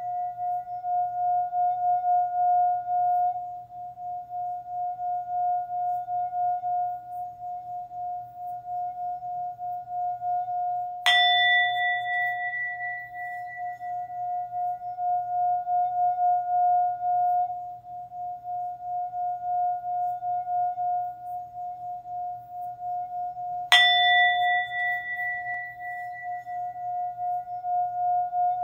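Singing bowl ringing with a steady, pulsing hum, struck twice about twelve seconds apart; each strike adds a bright higher ring that fades over a few seconds.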